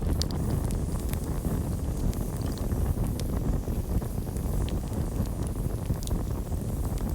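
Campfire burning, with a steady low rumble of flame and scattered sharp crackles and pops.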